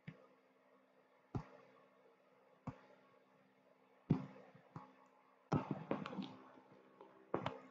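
Irregular taps and knocks of hands working a computer, about a dozen, with a quick run of them about five and a half seconds in, over a faint steady hum.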